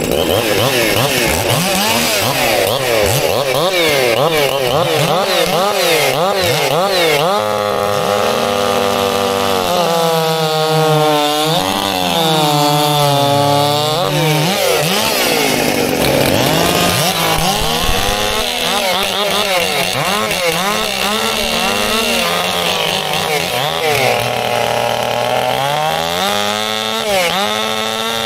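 Two two-stroke chainsaws running at high revs and cutting through a timber cant, their engine pitch sagging as the chains load up in the cut and climbing again, over and over.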